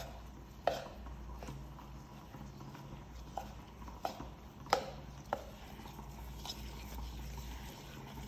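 Metal spoon stirring a thick mix of melted dark chocolate, walnuts and almonds in a bowl, clinking sharply against the bowl's side every second or so at irregular intervals.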